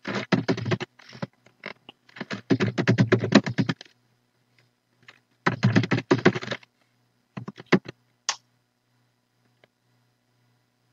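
Typing on a computer keyboard: several quick runs of keystrokes, stopping about three quarters of the way through.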